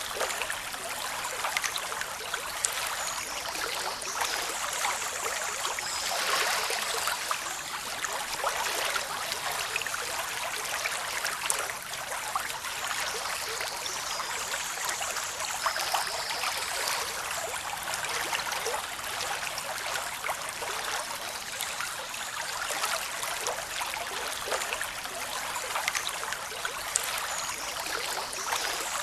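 Waterfall water rushing and splashing over rocks: a steady, even hiss with fine splashing and little deep rumble.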